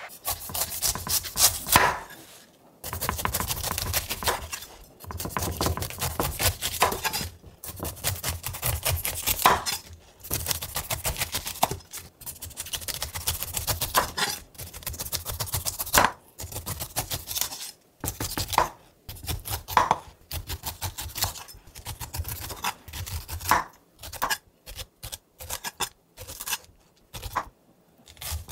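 Zwilling Henckels chef's knife cutting the rind off a whole pineapple on a wooden cutting board: repeated crunching, sawing strokes through the tough skin, with now and then a sharp knock of the blade on the board. Toward the end the cuts come shorter and quicker.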